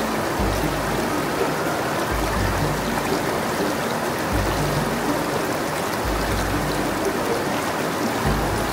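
Steady rush of waterfall water. Under it, background music with low bass notes about every two seconds.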